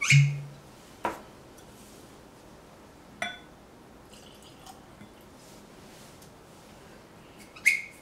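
Cork stopper pulled from a whisky bottle with a short hollow pop at the start, then light clinks and taps of glass and a faint pour into a small tasting glass. A sharper glassy knock comes near the end.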